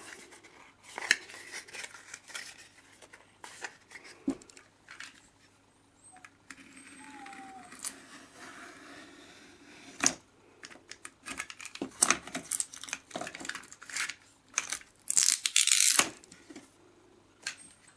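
Craft pieces and tools being handled on a work table: scattered clicks and taps with soft rustling, and a short, loud rasping scrape about fifteen seconds in.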